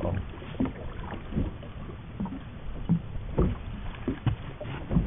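Irregular soft thumps and knocks, about a dozen, over a steady hiss of noise.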